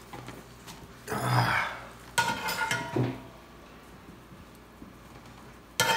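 Metal ladle clinking against a cast-iron skillet and plates while serving: a scraping noise about a second in, then sharp clinks that ring briefly, just after two seconds and again near the end.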